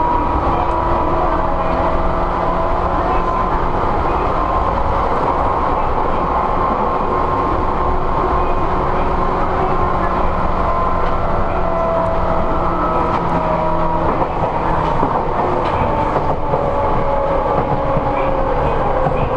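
Running sound inside a motor car of a Seibu 101 series resistance-controlled electric train. Traction motor and gear whine rides over the steady rumble of wheels on rail, with a few faint wheel clacks over rail joints. The whine tones drift slowly down in pitch in the second half.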